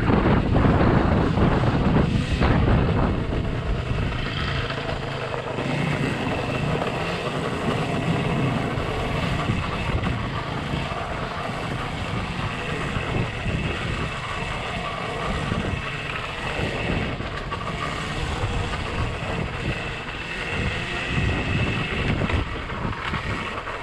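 Off-road riding noise on a dirt trail: wind buffeting the microphone and rough rumble of the ride, louder in the first few seconds, with a faint steady high whine from a few seconds in.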